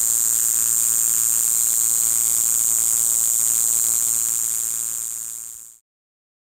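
Kayakiri katydid (Pseudorhynchus japonicus) singing a loud, continuous, very high-pitched buzz, with a faint steady low hum underneath. It fades out and cuts off near the end.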